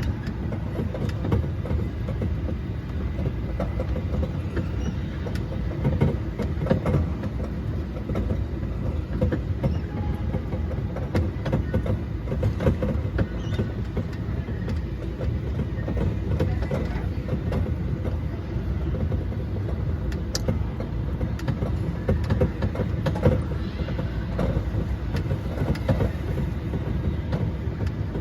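Mall ride-on train running: a steady low rumble with frequent small clicks and rattles.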